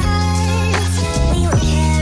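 Background electronic music with a strong bass line and sustained chords, the notes changing about every half second.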